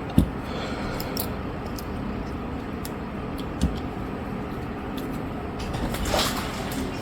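Small handling noises of repair work on a phone: two soft knocks, a few faint ticks and a brief scraping rustle about six seconds in, over a steady background hiss.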